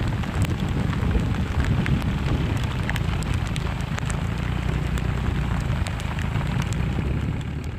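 Steady rain falling, with many close drops ticking and a steady low rumble underneath.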